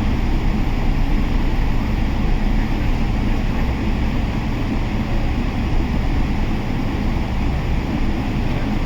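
Steady engine and airflow rumble inside the cabin of a Boeing 777-300 airliner, an even noise that stays level throughout.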